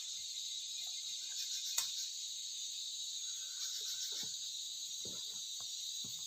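Steady insect chorus, a continuous high buzz, with a single sharp click about two seconds in and a few faint knocks.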